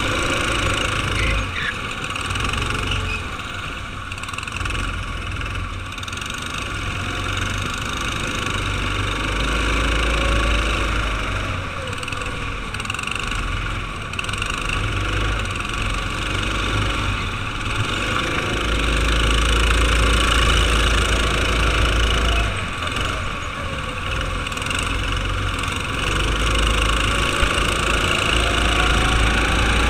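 Go-kart engine running hard at race pace, its pitch falling into corners and rising again on acceleration, with a strong low rumble underneath. Another kart's engine is close ahead.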